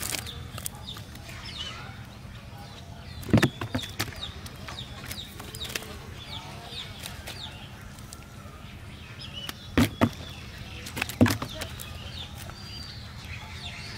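Birds chirping steadily in the background while a fish is worked out of a cast net by hand. Three loud short knocks come about 3.5, 10 and 11 seconds in.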